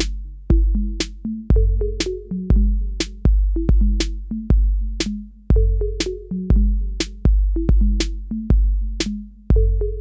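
Background electronic music with a steady drum-machine beat, about two beats a second, over a deep synth bass line.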